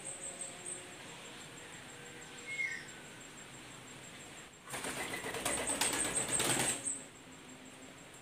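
A white Barbary dove's wings flapping as it takes off and flies. There is a rapid flurry of wingbeats lasting about two seconds, starting nearly five seconds in.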